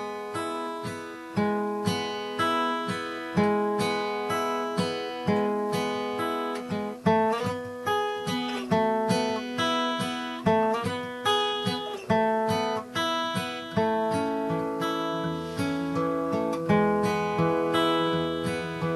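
Acoustic guitar in open D tuning, fingerpicked in a steady repeating pattern of plucked treble notes over ringing lower strings.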